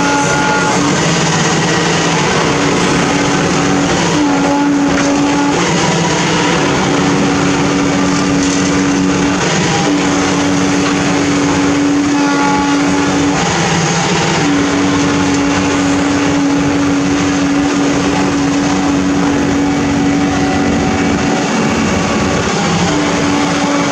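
Amphibious backhoe's diesel engine running loud and steady, with a humming tone that cuts out and comes back several times as the boom and arm move.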